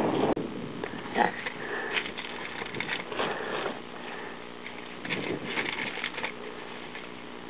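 Someone crunching and chewing crackers by mouthfuls, with the crackly rustle of the cracker packet, in irregular short spells. A sharp click near the start.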